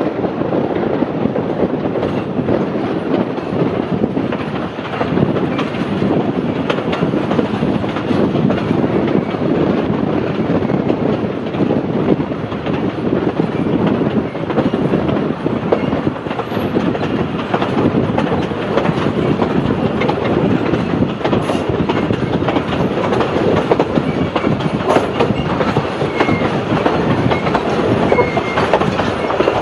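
Narrow-gauge heritage passenger carriage running along the track, heard from on board: a steady rumble with continual wheel clatter over the rails.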